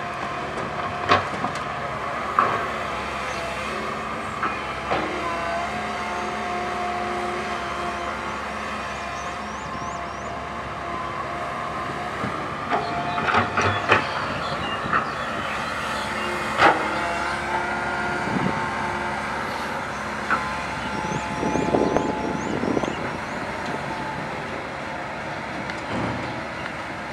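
Komatsu PC130 hydraulic excavator running steadily under load with a whine from its hydraulics, while its bucket loads dirt and rocks into a dump truck's steel bed, giving sharp clanks and knocks at intervals, with a cluster of them about halfway through.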